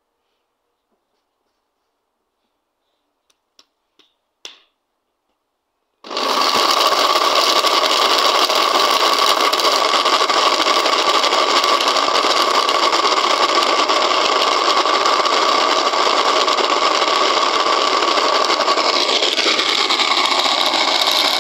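Panasonic electric blender switching on about six seconds in after a few faint clicks, then running steadily while grinding almonds, coconut and pistachios. Near the end a tone in the motor's sound falls in pitch.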